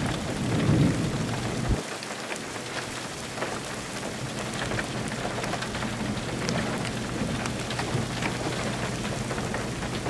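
Thunder from a supercell rumbling low and dying away about two seconds in, over steady rain with many scattered drop ticks.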